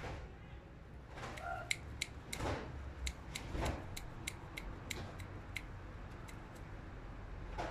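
Husky puppy claws clicking on a tiled floor: a run of sharp, evenly spaced ticks, about three a second, starting a little under two seconds in and stopping about two seconds before the end, over faint scuffling.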